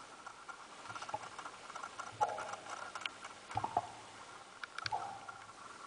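Scattered sharp clicks and short high blips over a faint steady tone and a low hum, bunched in the middle seconds.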